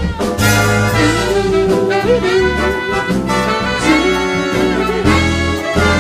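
Instrumental passage of a live band: a horn section plays the melody over bass and rhythm.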